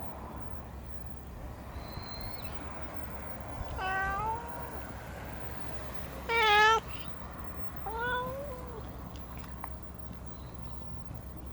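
A cat meowing three times, about four, six and a half and eight seconds in; the middle meow is the loudest and shortest, the last one ends in a falling glide.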